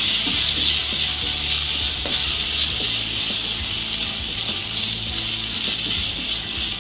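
Chopped onion, carrot, cabbage and beans with sauces sizzling steadily in hot oil in a kadai, stirred with a wooden spatula that makes short scrapes against the pan now and then.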